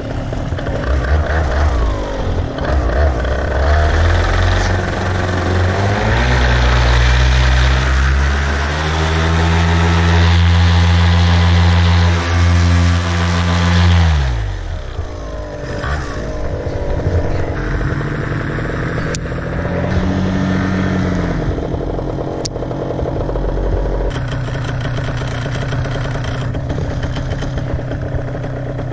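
Paramotor engine and propeller running on the ground. It is revved up about six seconds in, held high for several seconds and throttled back to idle around the middle. Later it gets a second, shorter rev.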